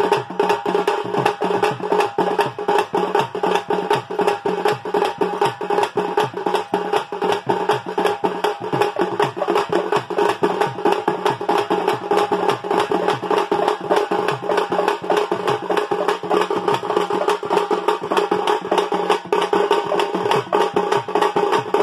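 A small folk drum band playing together: a shoulder-slung barrel drum, a large bass drum beaten with a stick and a small hand-held drum. They keep up a fast, steady beat of sharp strokes.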